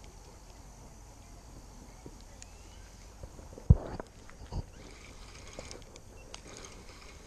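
Handling noise from a spinning rod and reel held close to the microphone: two dull thumps about a second apart near the middle, the first much louder, over faint outdoor background with a few light ticks.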